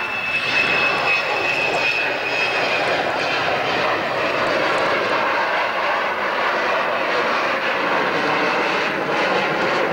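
Jet engines of a Hawker Siddeley Nimrod, its four Rolls-Royce Spey turbofans, running during a low flypast: a high whine over the rushing jet noise for the first few seconds, then a steady rushing jet noise alone.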